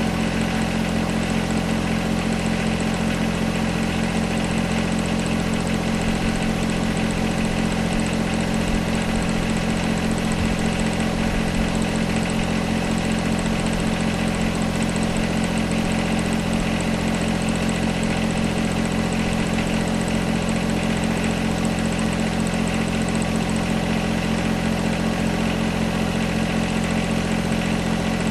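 John Deere 1025R compact tractor's three-cylinder diesel engine running steadily at low, even revs.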